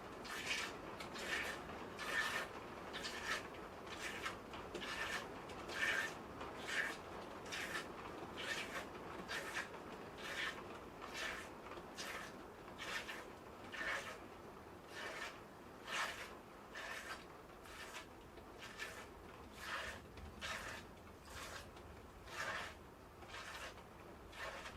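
Goat being hand-milked, streams of milk squirting into a pail in a steady rhythm of short hissing squirts, a little under two a second.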